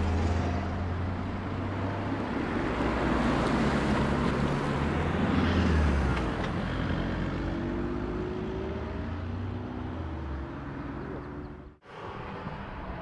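BMW M3 prototype's twin-turbo straight-six engine as the car drives past, loudest as it passes close, then pulling away with its pitch rising under acceleration. The sound cuts out abruptly near the end.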